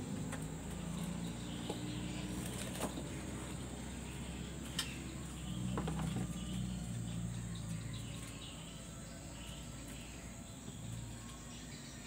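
Faint bird chirps over a low steady hum, with a few sharp taps.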